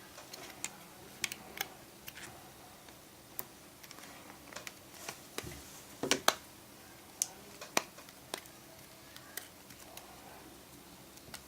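Irregular small plastic clicks and taps as an iPhone 5C's replacement screen assembly is pressed down and snapped into its frame, with a louder double click about six seconds in.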